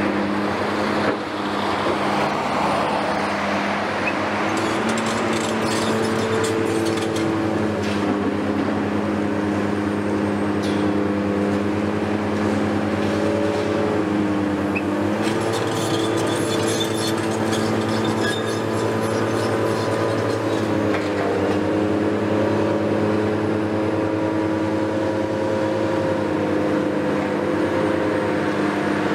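Heavy diesel demolition excavators running steadily, the engine pitch shifting as the hydraulics take load partway through. A knock about a second in, and two spells of metallic rattling or clanking.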